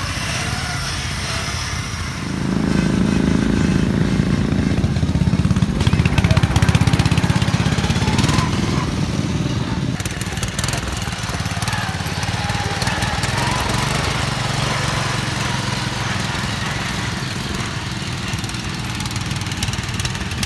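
Racing ride-on lawn mower engines running. About two seconds in one grows much louder as it revs and pulls away, then the engine sound settles to a steadier run.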